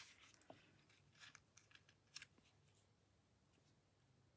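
Near silence, with a few faint, short rustles of card stock as hands press a glued paper panel flat onto a card base.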